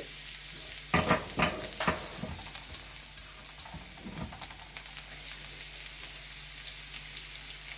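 Chopped garlic sizzling and crackling in hot oil in a wok, just after going in to fry. A few louder sharp crackles come in the first couple of seconds, then a steady sizzle.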